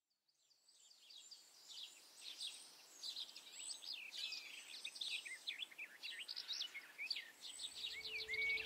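Several songbirds singing together, a dense run of quick high chirps and sweeping notes that fades in from silence over the first couple of seconds. A low held tone comes in near the end.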